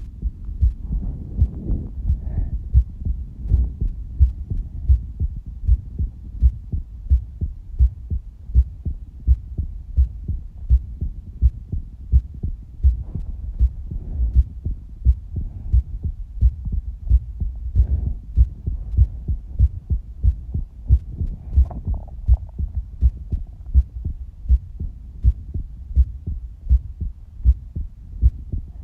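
Human heartbeat: a steady, regular rhythm of low thumps, a little faster than one a second.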